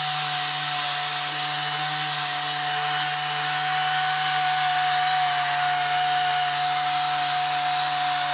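A Foamtec pneumatic (air-powered) scrubbing tool runs steadily as its pad is worked over a metal cover plate. It gives a constant high whine over a continuous hiss of air.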